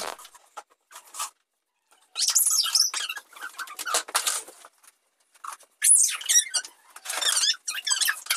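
Plastic chairs scraping and squeaking across a hard floor in several bursts as children push them along, with a few high squeals from the chair legs.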